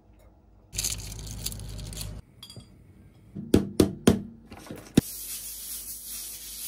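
Glass bottles and containers handled on a kitchen countertop: a stretch of hiss, then four sharp glass clinks in quick succession around the middle and one more a second later. After that comes a steady scrubbing hiss as the counter is wiped.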